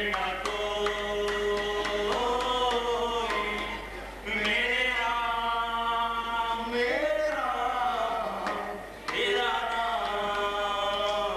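Slow singing in three long phrases, each drawn out on held notes, with short breaks about four and nine seconds in.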